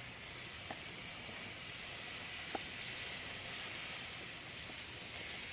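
Chicken sizzling on a hot grill, a steady, faint hiss as it cooks under a honey-based basting sauce, with a couple of light clicks.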